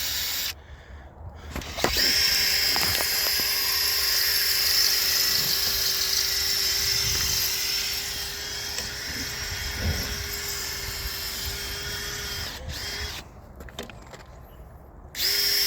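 Power drill boring a hole into a concrete footer pad, running at a steady pitch. It stops briefly near the start, runs steadily for about ten seconds, winds down, and starts again near the end.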